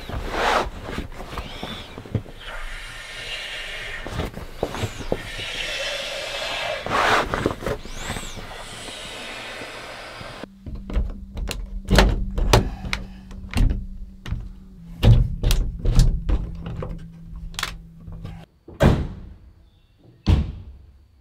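Inflatable sleeping pad being rolled up tight to push the air out: the pad's fabric rustles and crinkles over a steady rush of air. About halfway through, the sound cuts to a run of sharp thumps and knocks, with a faint steady hum under them for several seconds.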